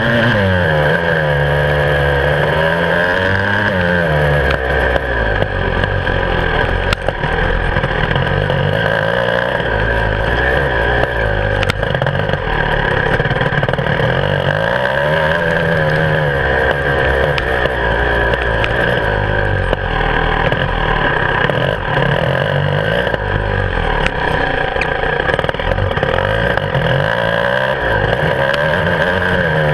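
Beta 300RR two-stroke enduro motorcycle engine running hard under the rider's throttle, its pitch rising and falling again and again as it revs up and backs off.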